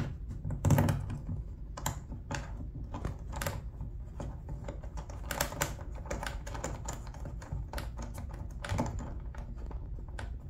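Irregular light clicks and taps of small hardware and fingertips against a plastic kayak hull, as a padeye's screw and well nut are started by hand.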